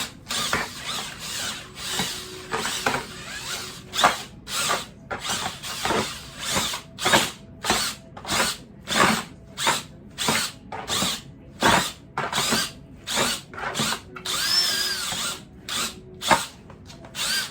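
Electric drill spinning a meat-shredding attachment through smoked pork shoulder, run in short repeated bursts about twice a second. Near the end there is one longer run whose whine rises and falls.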